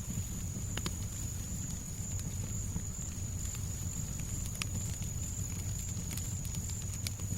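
Fireplace fire crackling: scattered sharp pops over a steady low rumble of background noise, with a thin, steady high tone running through.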